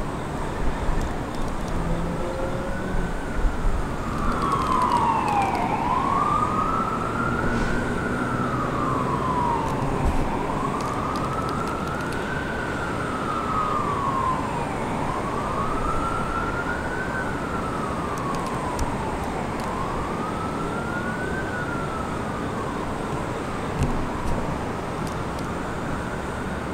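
Emergency vehicle siren in a slow wail, its pitch rising and falling about every four and a half seconds, over steady low background noise.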